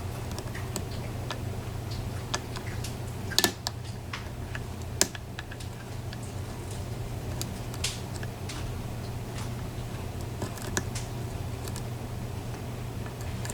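Lock pick and tension wrench working the pins inside a PACLOCK 90A challenge padlock with security pins: scattered small metallic clicks and ticks, with a few sharper clicks, under a steady low hum.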